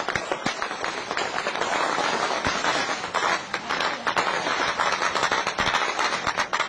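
Sustained heavy gunfire: many guns firing rapid, overlapping shots in a dense crackle that never lets up.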